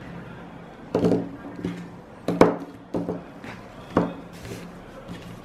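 Small Winsor & Newton gouache paint tubes being set down one by one on a tabletop: several light knocks about a second apart.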